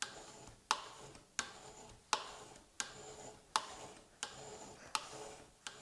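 A hardened steel burnisher is drawn in repeated strokes along the edge of a steel card scraper held in a vise, tilted about 5 degrees to form the burr. About eight strokes come at an even pace, each a sharp click followed by a short, faintly ringing steel-on-steel slide.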